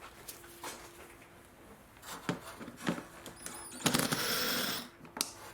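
Hand tools and small fasteners being handled while undoing the 8 mm bolts on a car's pollen filter cover: scattered light clicks and knocks, then about a second of loud continuous rasping about four seconds in.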